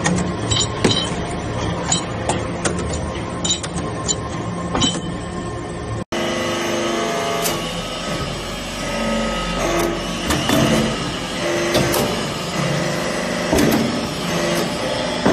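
Hydraulic briquetting press running: a steady motor and pump hum with repeated metallic clanks and knocks as the ram presses loose metal chips. The sound breaks off briefly about six seconds in and then goes on with a similar hum and clatter.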